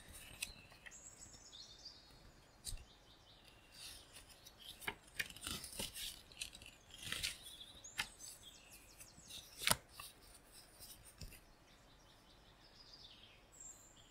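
Paper pages of a book being handled and turned: a run of soft rustles and several crisp snaps. Faint forest birds chirp behind, a few high chirps near the start, in the middle and near the end.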